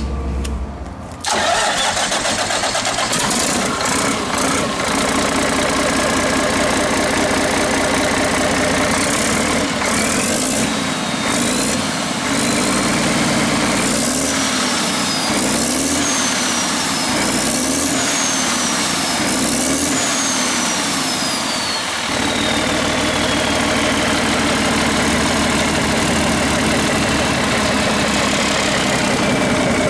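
Cummins QSM11 inline-six marine diesel starting about a second in and settling into a steady run. It is then revved up and down several times, its turbo whining higher and lower with the revs, before it drops back to idle while the whine slowly winds down.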